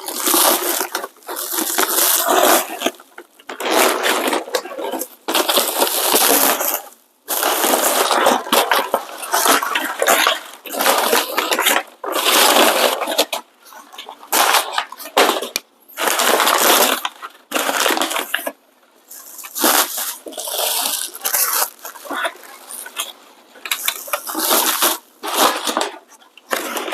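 Bubble wrap and plastic packaging crinkling and crackling in repeated bursts as it is pulled off and handled.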